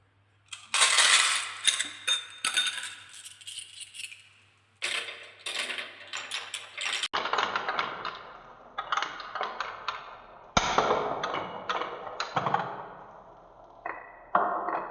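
Marbles rolling and clacking down a wooden marble run in quick, irregular runs of clicks and rattles. About seven seconds in the sound changes to a duller, more muffled clatter.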